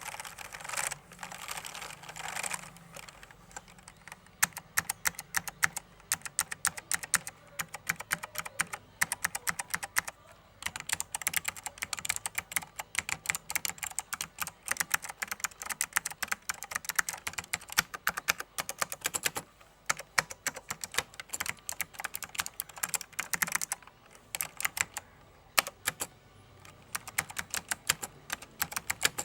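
Typing on a mechanical keyboard with SKCM White Alps clicky tactile switches: a continuous run of sharp key clicks with uneven spacing.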